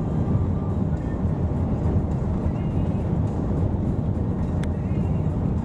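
Steady low rumble of a car driving along a highway, engine and road noise without a break.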